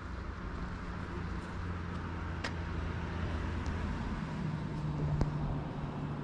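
A car's engine running close by, its low hum shifting higher about four seconds in, with a couple of brief clicks.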